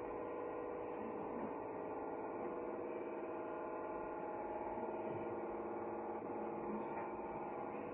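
Construction sound effects played from a Bluetooth speaker: a steady machine hum with many tones, holding at an even level.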